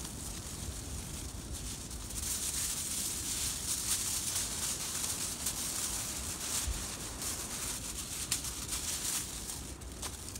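Aluminium foil crinkling and rustling as it is wrapped around a joint of beef for the spit roast, swelling about two seconds in, with a few sharp clicks, over a low rumble of wind.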